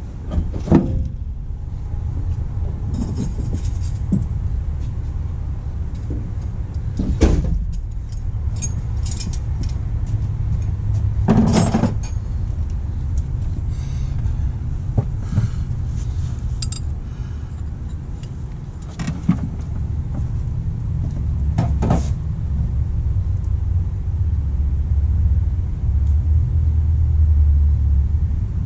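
Metal hand tools and fittings clinking sharply about five times, spread out, as work goes on in a truck's engine bay, over a steady low background rumble that swells a little near the end.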